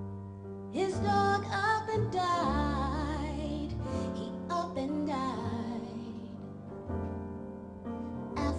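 A woman singing into a microphone, with vibrato on held notes, accompanied by piano and upright double bass. Her voice comes in about a second in.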